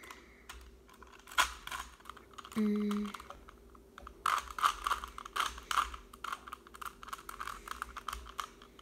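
Rubik's cube layers being twisted by hand: quick plastic clicks and rattles, a few at first and then a fast, continuous flurry of turns from about halfway through.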